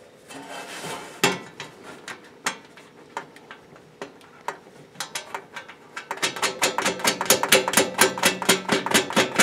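Light metal clicks and taps on a sheet-steel welding cart frame as small nuts and bolts are fitted by hand; about six seconds in they become a fast, even clicking, about five a second, ringing in the thin steel panels.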